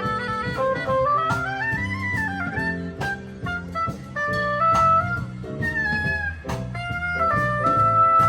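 Instrumental band music: a melodic lead line over bass and drums, with no singing.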